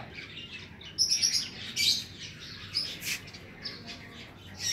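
Lovebirds chirping: a run of short, high chirps, a few each second.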